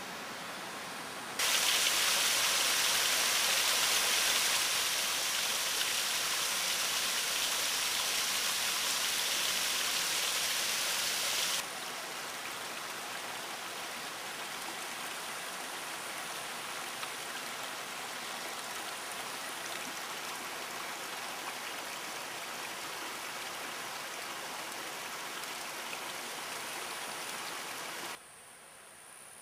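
Shallow mountain stream flowing over rocks and sand: a steady rush of water, much louder from about a second and a half in until about twelve seconds, then softer and even, dropping away sharply near the end.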